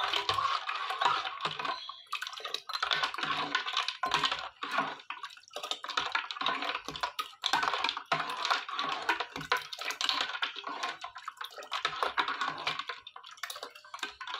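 Metal spoon stirring iced milk in a metal pot: rapid clinking of the spoon and ice cubes against the pot, in bouts with brief pauses.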